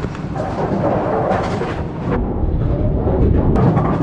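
Steady low rumble with a few scattered knocks: the running machinery and rolling noise of a bowling center's pinsetter area.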